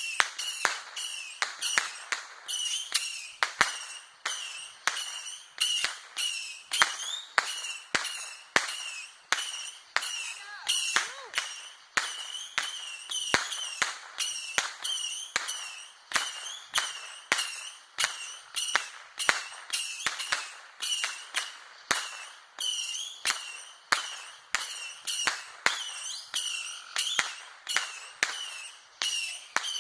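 Fireworks going off in a long, evenly spaced series of sharp bangs, about one and a half a second, each followed by a high wavering squeal.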